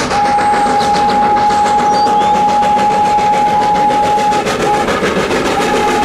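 Full-size Thomas the Tank Engine locomotive running past with its coaches, its whistle held on one long steady note. The whistle breaks off about four and a half seconds in and sounds again near the end, over the steady noise of the running train.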